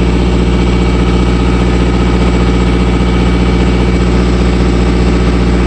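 Engine idling steadily and loudly, an even, unchanging hum.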